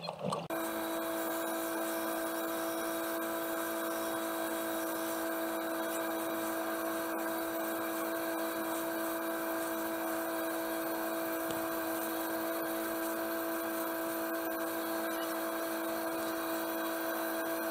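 Boat's engine running steadily at cruising speed, a constant droning hum with several fixed tones that starts suddenly about half a second in and never changes.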